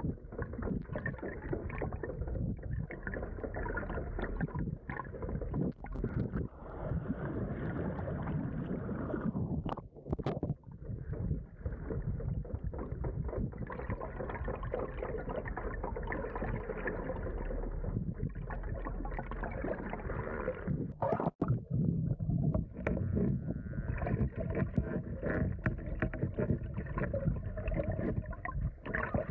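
Muffled, steady rush of water against an underwater camera mounted on a racing yacht's hull as the boat moves through the sea, with two short breaks.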